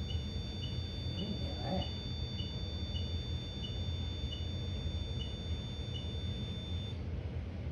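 An electronic beeper chirping in a steady, even rhythm, a little under two short high beeps a second, with a thin steady electronic whine. The beeping stops near the end, over a low steady hum.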